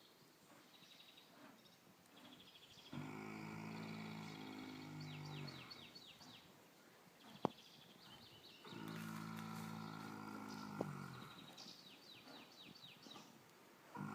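Snoring in a slow, regular rhythm: two low, pitched snores, each about two and a half seconds long and about five and a half seconds apart, with a third beginning at the very end.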